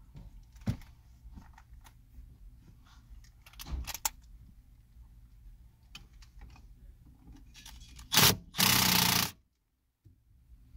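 Small clicks and knocks of tools being handled, then near the end a cordless drill/driver spins in two short bursts, a brief one and then one of about a second, as it backs out the screws holding the factory stereo. The second burst is the loudest sound and cuts off suddenly.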